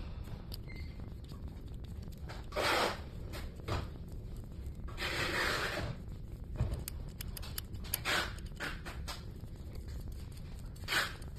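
Dual-action gravity-feed airbrush letting out short hisses of compressed air as its trigger is pressed, about four times, the longest about a second long near the middle, over a steady low hum.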